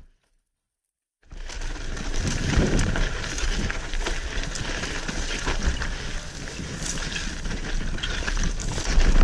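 Mountain bike ridden fast down a rough trail, heard from a bike- or helmet-mounted action camera: tyres rolling over dirt and rocks, with rattling chain and frame knocks and wind noise. It cuts in after about a second of dead silence.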